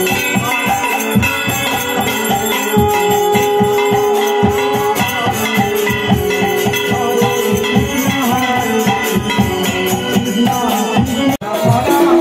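Music: long held notes over a fast, steady rattling percussion beat. It drops out for an instant near the end.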